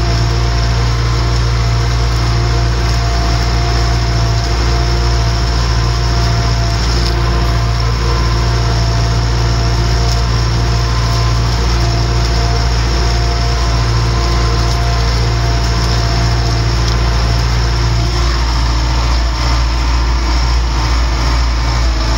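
MTZ-892 tractor's four-cylinder diesel engine running steadily under load, pulling a field cultivator, heard from inside the cab.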